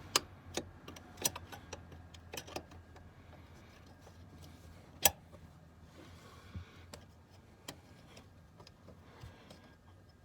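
Irregular sharp plastic clicks and taps as a loose plastic seat-trim clip is worked out by hand, with a louder single click about five seconds in.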